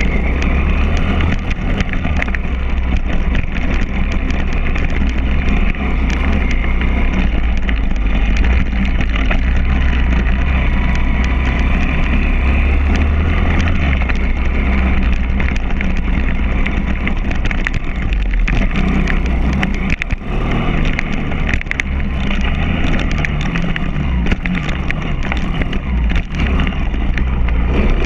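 Pit bike's single-cylinder four-stroke engine revving up and down as the bike is ridden hard around a dirt track, with brief drops as the throttle is rolled off about two-thirds of the way through and again near the end. Heavy wind rumble on the on-bike microphone and frequent knocks from the bike over the bumps.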